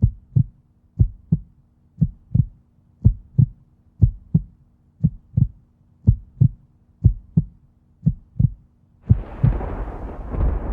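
Heartbeat sound effect: pairs of low thumps about once a second over a faint steady hum. About nine seconds in, a dense rumbling noise swells up under the last beat.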